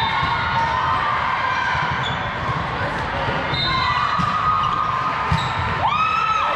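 Volleyball rally in a large gym: sneakers squeaking on the sport-court floor and the thumps of ball contacts and bounces, over a murmur of spectators, with a louder drawn-out squeak near the end.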